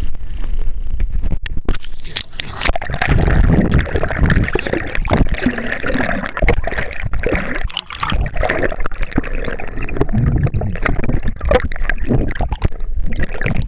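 Water gurgling and rushing over a camera's microphone held underwater beside a boat, with irregular knocks and clicks. It gets louder about two seconds in, as the camera goes under.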